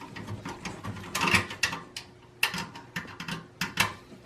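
Screwdriver backing a screw out of a PC's sheet-metal chassis: an irregular run of small mechanical clicks and scrapes.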